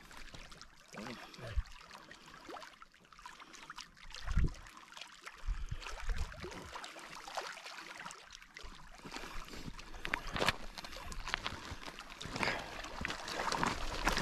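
Small waves lapping and splashing against a rocky shoreline, with wind buffeting the microphone in low thumps. Over the last few seconds a hooked fish splashes at the surface as it is reeled in to the shore.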